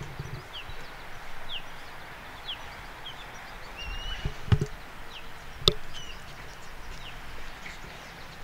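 Outdoor ambience with birds chirping in short high notes throughout, and two sharp knocks, one about four and a half seconds in and a sharper one just under six seconds in.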